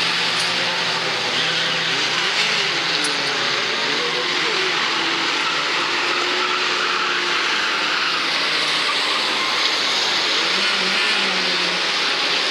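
Banger racing cars' engines running on an oval track: a steady din of several engines, with engine notes rising and falling as the cars rev through the laps.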